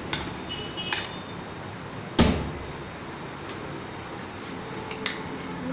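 A single sharp knock about two seconds in, with a short ringing tail, among a few lighter clicks.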